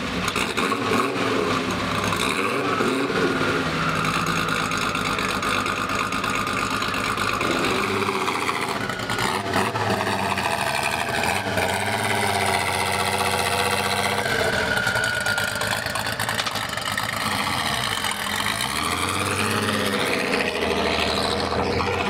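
Turbocharged VR6 engine of a twin-engine VW Golf running. Its pitch steady at first, then falling and rising again from about halfway through as the engine speed changes.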